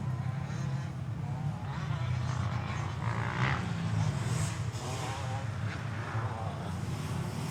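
Motorcycle engine running, its pitch rising and falling slightly.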